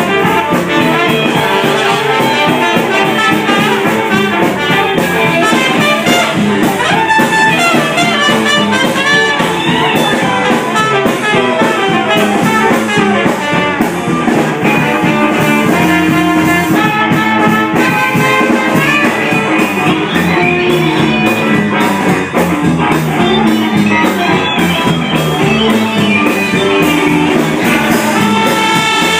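Loud, continuous music with many pitched notes moving throughout.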